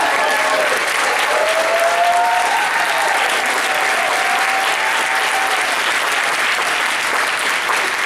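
Audience applauding steadily, with a few drawn-out voices calling out through the middle of it.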